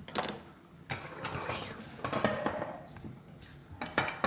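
Kitchen utensils and dishes clinking and knocking against one another in a string of irregular sharp clinks.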